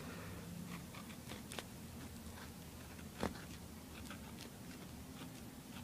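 Faint scratching of a pen writing on a notebook page, in short irregular strokes, with one sharper tick about three seconds in.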